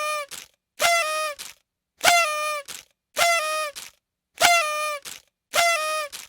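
Party horn sound effect: a buzzy, reedy toot that drops slightly in pitch and ends with a short second blip, repeated about every 1.2 seconds.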